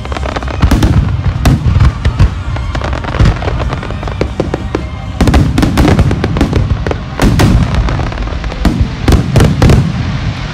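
Aerial fireworks shells bursting in a rapid barrage, deep booms mixed with sharp cracks several times a second, with music playing underneath.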